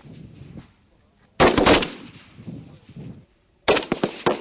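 Two single rifle shots from a Kalashnikov-type assault rifle, about two and a half seconds apart, each with a short echoing tail. The rifle is fired in single-shot mode at a 300 m target.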